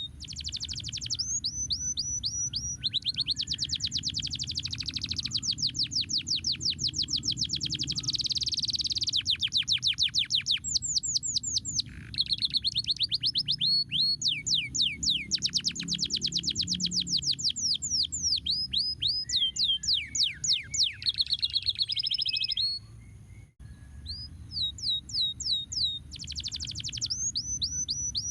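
Domestic canary singing long rolling phrases of fast repeated, downward-sliding notes, with changes of tempo and a short pause near the end before the song resumes.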